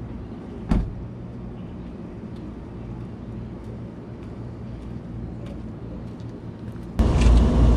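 Steady low outdoor rumble with a faint hum and a few faint ticks, broken by one sharp knock about a second in. Near the end a much louder low rumble starts abruptly.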